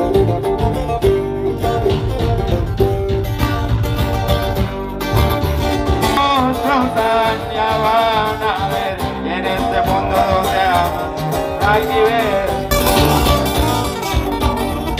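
Live band of acoustic guitars playing through a PA, strummed and picked, with a man singing over them through the middle.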